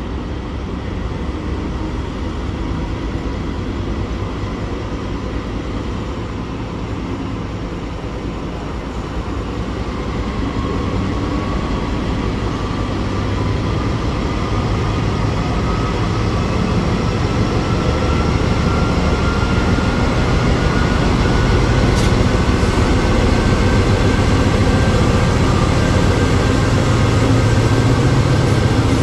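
Pacific National NR class diesel-electric locomotives running as they pull a freight train slowly past, a heavy engine rumble that grows louder as the units draw level. A whine rises slowly in pitch through the second half.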